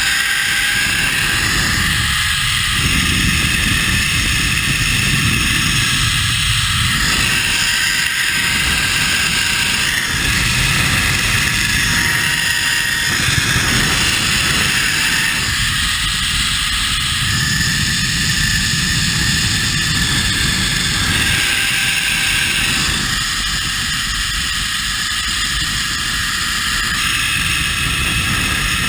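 Wind rushing over the microphone mixed with a zipline trolley's pulleys running along the steel cable during a fast ride: a loud, steady rushing noise with a gusty low rumble that swells and drops every few seconds, and a faint steady whine from the trolley.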